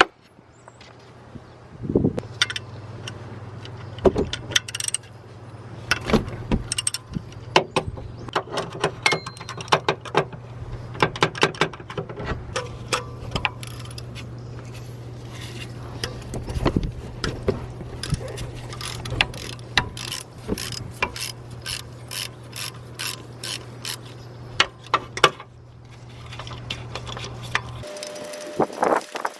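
Hand ratchet wrench clicking in quick runs, with a few heavier single knocks between, as bolts are turned by hand.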